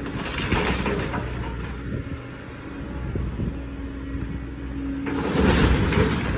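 Tracked excavator's diesel engine running under load with a hydraulic whine, while the house it is demolishing crashes and crunches as debris breaks and falls. The crashing comes near the start and again, loudest, in the last second or so.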